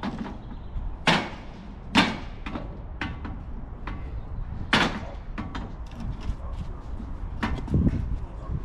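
Several sharp bangs and knocks at irregular intervals, the loudest about a second and two seconds in and again near the end, over a steady low rumble.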